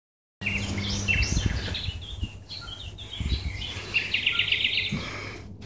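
Small songbirds chirping and twittering, with a fast trill of rapidly repeated notes about four seconds in, over a low hum with muffled low thumps.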